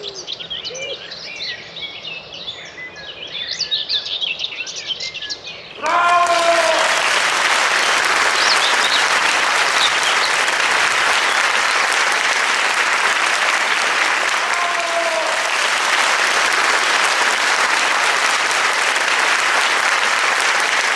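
Songbirds singing in a mixed dawn chorus for about six seconds, then a sudden cut to loud, steady applause from a large crowd, with a couple of whooping cheers in it.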